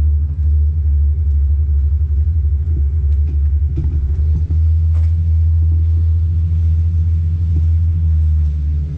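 Power wheelchair driving across a hard terrazzo floor: a loud, steady low rumble of its drive motors and wheels, heard close up from the chair, with a couple of small knocks around the middle.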